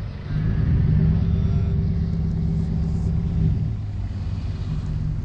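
Pickup truck engine running steadily at low speed with a low hum, easing off a little about three and a half seconds in.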